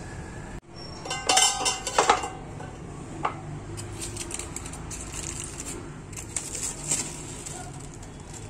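Metal cookware clatters and rings a few times about a second in. Then aluminium foil crinkles over and over as it is peeled back, unsealing a pot of dum-cooked biryani.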